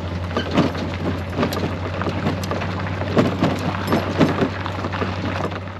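Crackling, splashing water noise with scattered sharp ticks over a steady low hum.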